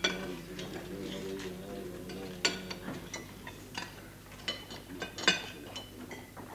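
Scattered light clinks and clicks of dishes and cutlery at a table, over a faint background murmur.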